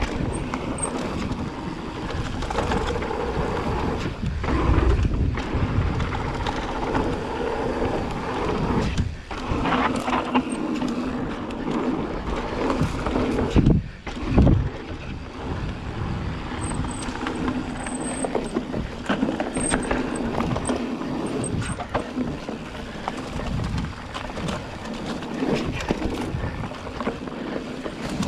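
Mountain bike riding fast down dirt singletrack: knobby tyres rolling and crunching over packed dirt, with the bike rattling over bumps and a few sharper knocks from roots and drops.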